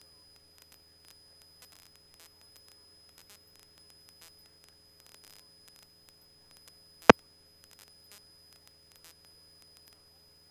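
Faint hiss and scattered crackle from the aircraft's radio and intercom audio feed between transmissions, over a low steady hum. One sharp click comes about seven seconds in.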